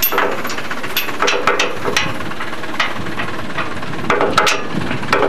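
A vehicle driving along a rough dirt road, its engine running under a rattling body, with irregular knocks and clatters every half second or so as it jolts over bumps.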